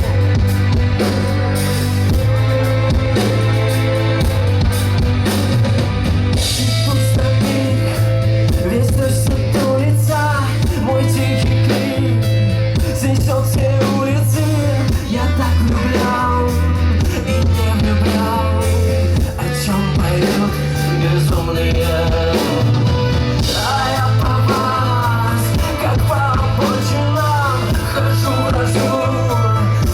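Live rock band playing a song with drum kit, bass and guitar, the bass line moving to a new note every few seconds.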